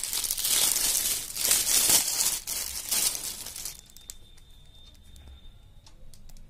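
Thin plastic packaging crinkling and rustling as a pair of flip-flops is pulled out of it. The crinkling stops about four seconds in, and a few faint clicks follow.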